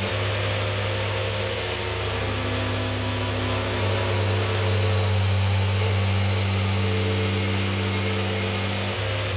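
Wood-Mizer LT40 portable band sawmill running: a steady engine drone with the whir of the spinning band blade as the saw head travels along the log. The engine note shifts near the end.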